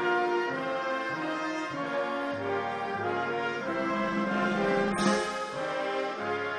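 Brass ensemble playing a slow processional piece in sustained chords that change every second or so, with a single sharp percussive hit about five seconds in.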